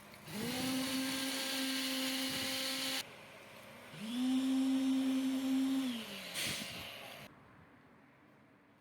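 A small electric motor whirring twice. It spins up to a steady whine, runs for about three seconds and cuts off abruptly; a second later it spins up again, runs about two seconds and winds down.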